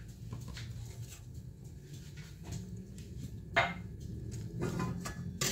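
Light kitchen clatter of pots and utensils being handled: a few scattered clicks, with two sharper knocks about three and a half seconds in and near the end, over a steady low hum.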